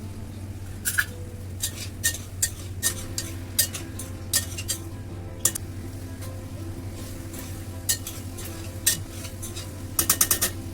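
A metal spoon stirs mutton and red chillies cooking in ghee in a pot, clinking and scraping against the pan at irregular moments, with a quick run of clinks near the end. A light sizzle and a steady low hum run underneath.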